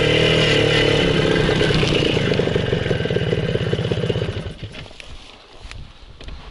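Soviet Minsk motorcycle's single-cylinder two-stroke engine riding in, dropping to low revs with distinct firing pulses about a second in, then cutting out about four seconds in as the bike is stopped. Faint clicks follow.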